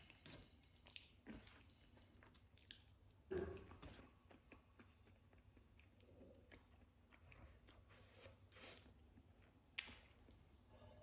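Soft close-miked chewing and mouth sounds, with a louder bite or crunch about three and a half seconds in and another near the end.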